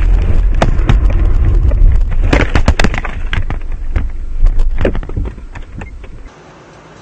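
Car crash heard from inside the vehicle: a run of loud bangs, knocks and clattering over a heavy rumble, with the sharpest knocks about two and a half and five seconds in. It cuts off abruptly about six seconds in.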